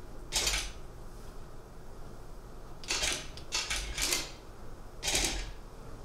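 Press cameras firing rapid bursts of shutter clicks, in several short volleys of about half a second each: one just after the start, two or three close together around the middle, and one near the end.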